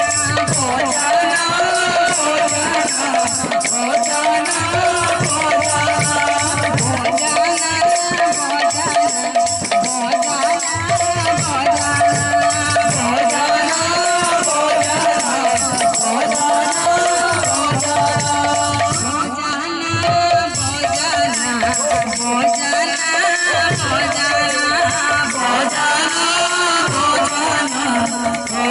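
Live Odia kirtan music: a woman sings a devotional song over a barrel drum and fast, continuous strikes of handheld cymbals, with a steady held tone under the voice.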